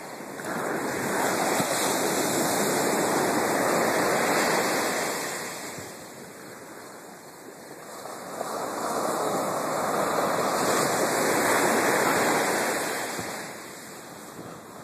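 Ocean surf on a sandy beach: two long swells of breaking and washing waves, each building and fading over about five seconds.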